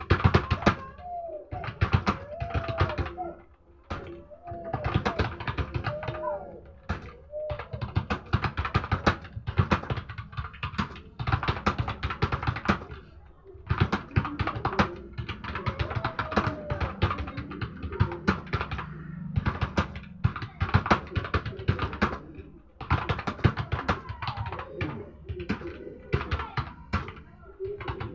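Fast, continuous typing on a mobile phone's on-screen keyboard: rapid key-tap clicks, several a second, with short pauses between bursts.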